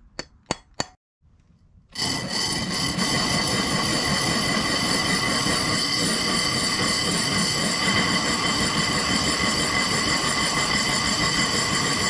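Cordless drill running slowly, its glass-drilling bit grinding into a glass bottle: a steady motor whine over a gritty grinding that starts about two seconds in and holds even. Just before, three quick clicks.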